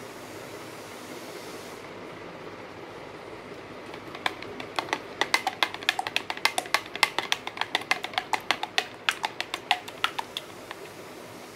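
Metal spatula clicking against the sides of a plastic beaker as ultrasound gel is stirred by hand while it thickens. Quick, irregular clicks, several a second, start about four seconds in and stop shortly before the end.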